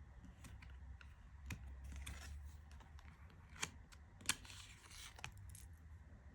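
Tarot cards being handled and flipped through: soft sliding and rustling of card stock with several sharp clicks as cards are turned and set down, the loudest about four seconds in.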